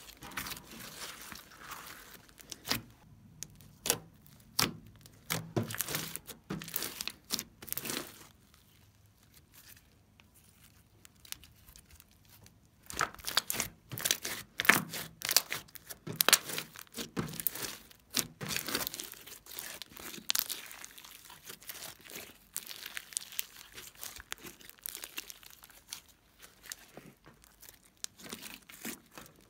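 Glittery slime squeezed, stretched and kneaded by hand, giving irregular clusters of sticky clicks, crackles and air-bubble pops. A quiet pause of a few seconds comes about a third of the way in, then the squishing resumes.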